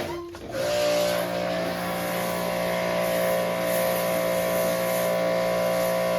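Pressure washer running with a steady motor drone and hissing spray; it drops out briefly just after the start, then runs on unbroken.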